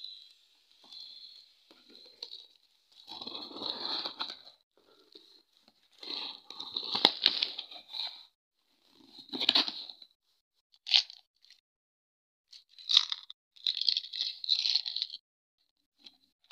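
Parcel packaging, black plastic wrap and a cardboard box, crinkling and rustling as it is handled and pulled open, in irregular bursts with short quiet gaps.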